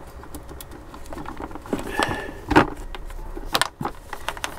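Cables being handled and routed inside a wooden cabinet: scattered clicks, rattles and knocks, the loudest about halfway through and a quick pair a second later, over a low steady hum.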